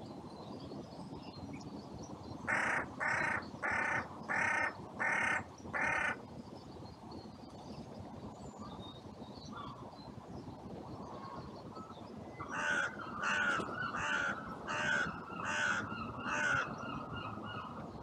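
Carrion crow cawing in two bouts: six evenly spaced caws starting about two and a half seconds in, then, after a pause of several seconds, another run of about six caws.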